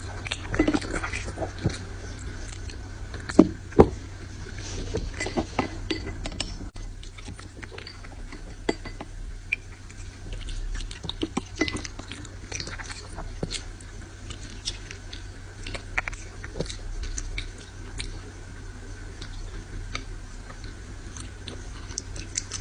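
A dog chewing and eating, with irregular wet crunches and smacks and two louder snaps a few seconds in, over a steady low hum.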